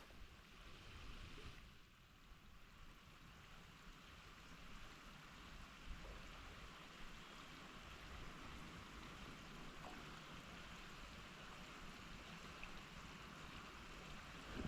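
Faint, steady rush of water with no distinct events: the high, fast creek running, or rain falling on it.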